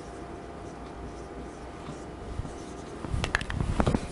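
Marker pen and eraser working on a whiteboard: faint writing at first, then about three seconds in a run of short squeaky strokes and rubs against the board.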